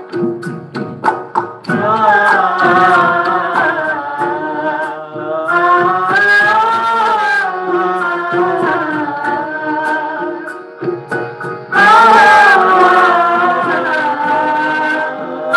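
Live Indian song performance: vocalists singing a melody over harmonium, keyboard and tabla accompaniment. It opens with quick drum strokes, the singing comes in under two seconds in, and the music gets louder about three-quarters of the way through.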